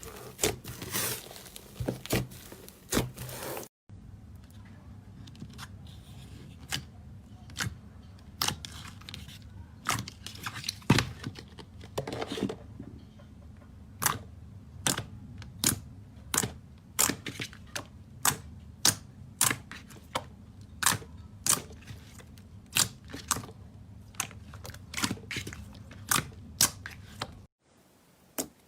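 Slime being pressed and squeezed by hand, giving a series of sharp clicks and pops. They come about two a second through the later part.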